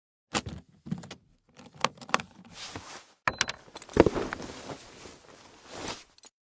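A string of sharp clicks, knocks and clatters of small hard objects being handled, with short rustling swells between them; the loudest knock comes about four seconds in.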